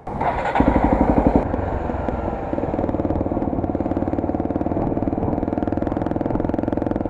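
Honda Tornado 250's single-cylinder four-stroke engine running with an even pulsing beat as the motorcycle is ridden, heard through a helmet-mounted camera with wind noise on its microphone. The beat is strongest about a second in, then settles to a steady run.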